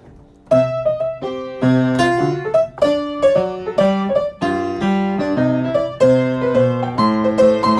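Piano music begins about half a second in: a melody of struck notes over lower notes.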